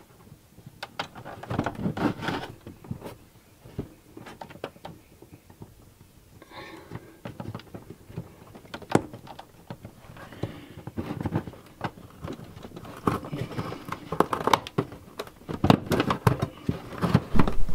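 Hands handling coax cables, wires and a plastic wall plate: scattered small clicks, taps and rustling, growing busier and louder a few seconds before the end.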